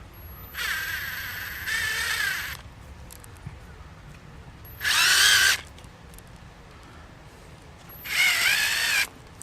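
Cordless drill screwdriver driving the screw of a Jubilee hose clip tight on a gas hose, its motor whining in three runs: a first of about two seconds, then two shorter ones, the middle one loudest.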